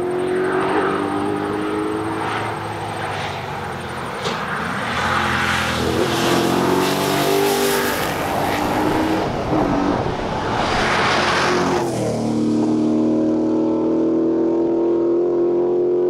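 Triumph TR7 rally car's V8 engine under hard acceleration, its note climbing and dropping back with gear changes. It finishes with one long, steady climb in pitch.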